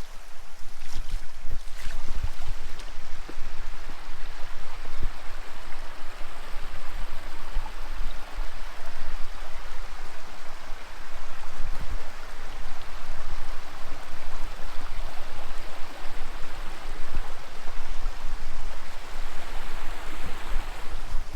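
Shallow rocky creek rushing steadily while a hiker wades across it in trail shoes, with scattered dull thuds of footsteps in the water.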